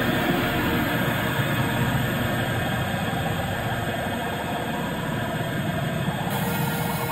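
Steady low rumble of a train running, the sound played by a tube-train driving-cab simulator as its controller is worked.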